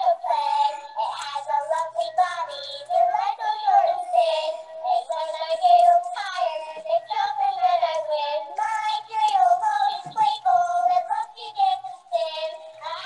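Animated plush dog toy singing a song in a high-pitched, child-like electronic voice as it dances.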